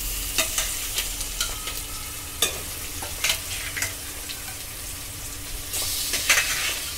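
Oil sizzling in a pot of frying onions, curry leaves and coriander as raw fish pieces are laid in, with a few sharp clicks and a louder burst of sizzle about six seconds in.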